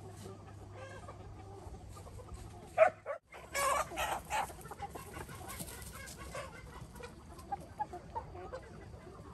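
Chickens clucking, with a louder run of short calls about three to four seconds in.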